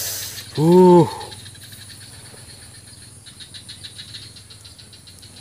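A man's single short vocal sound, like a brief "hm" or "eh", about a second in, its pitch rising and falling. After it comes a quiet outdoor background with a steady faint high hum and a few soft ticks.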